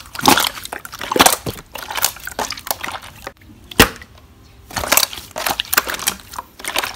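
Clear "fake water" slime being squeezed and pressed by hand, giving irregular bursts of wet crackling and popping, with one sharp pop a little under four seconds in.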